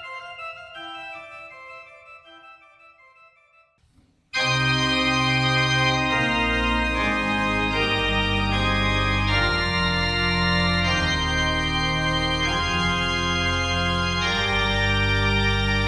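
Church organ playing: a quieter passage dies away over the first few seconds, then about four seconds in the full organ enters suddenly with sustained chords over deep pedal bass notes.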